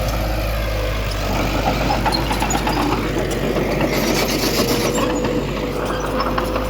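Diesel engine of heavy earthmoving machinery running steadily, with a steady whine over the low rumble and a spell of rattling about four to five seconds in.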